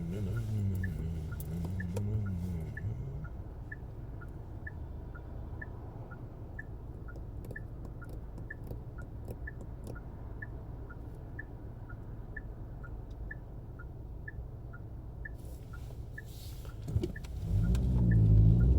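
Car turn-signal indicator ticking steadily, a bit over two ticks a second, alternating between a higher and a lower tick, over the low hum of the car's engine inside the cabin. Near the end the engine note rises as the car pulls away.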